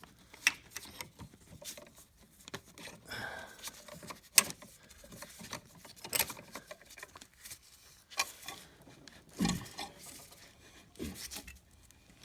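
Scattered clinks and knocks of hand tools on metal as a seized carriage bolt in a truck's engine mount is worked at; the sharpest click comes about four and a half seconds in and a duller thump about nine and a half seconds in.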